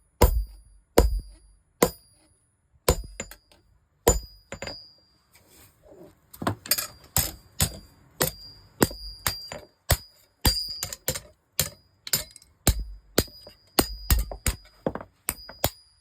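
Hand hammer striking a parang (machete) blade on an anvil as it is forged, each blow ringing with a high, clear ring. The blows come about once a second for the first few seconds, then pick up to a faster run of about two a second.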